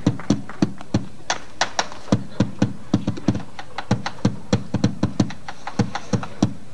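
Bombo legüero solo in a chacarera: the Argentine folk bass drum beaten with sticks in a steady, even rhythm of about three to four strikes a second, some strikes deep and others sharper and clickier.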